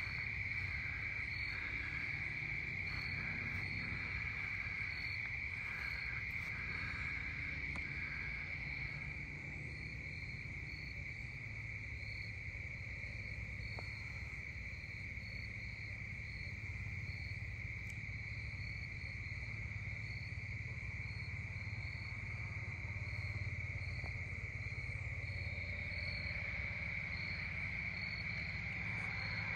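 Evening chorus of crickets: a steady, unbroken high trill, with a second, higher-pitched insect chirping in an even rhythm above it, over a faint low rumble.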